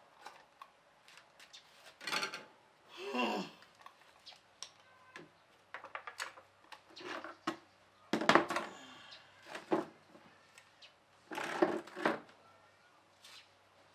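Irregular clicks, knocks and clatters of a pedestal electric fan being handled as it is taken apart for cleaning, with its wire guard and plastic parts rattling and its stand pole being worked. A few louder clatters come about two, three, eight and twelve seconds in.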